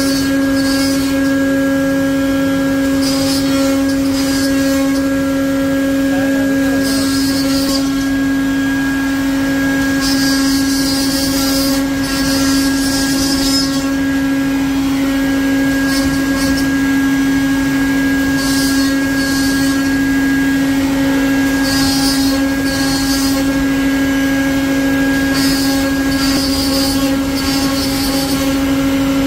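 CNC wood-carving router's spindle running with a steady high whine, broken by repeated hissing spells, each a second to a few seconds long, as the bit cuts the wooden panel.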